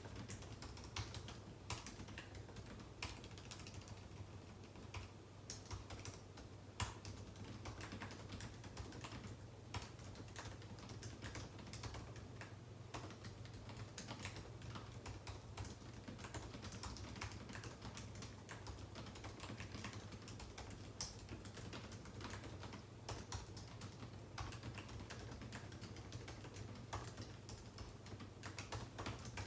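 Steady typing on a computer keyboard: rapid, irregular key clicks with a few louder presses standing out, over a faint steady low hum.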